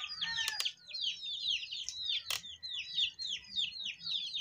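Chicks peeping in a rapid, unbroken string of high chirps, each sliding downward, several a second. A sharp click cuts through about two seconds in, with a fainter one near the start.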